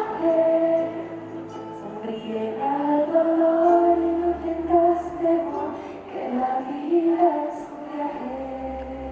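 Live performance of a slow song: a woman singing a held, gliding melody over soft accompaniment. A deep sustained bass note comes in about halfway through and again near the end.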